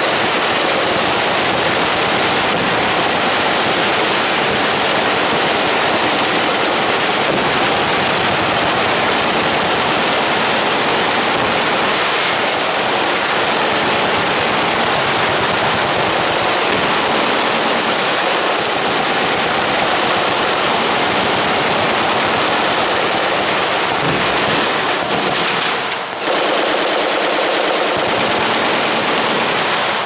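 Many machine guns firing at once on a range, a dense, unbroken stream of automatic fire that slackens briefly about four seconds before the end.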